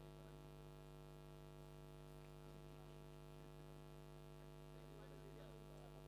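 Near silence: a steady electrical mains hum.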